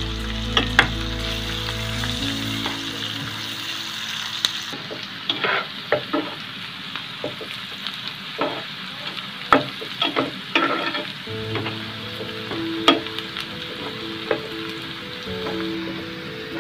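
Sliced onions sizzling in hot oil in a frying pan, stirred with a spatula that gives many short clicks and scrapes against the pan.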